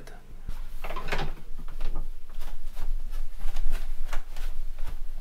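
Footsteps and handling noise of a person walking with a handheld camera: a quick, irregular run of knocks and rustles over a low steady hum.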